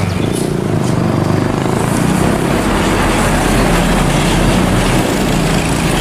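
Intercity coach bus driving by on a road: a steady rush of engine and road noise with a low drone underneath.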